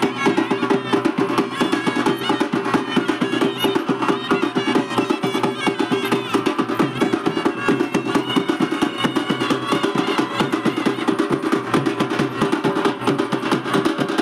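Village band drums playing a fast, steady dance beat, with a melody line wavering above the drumming.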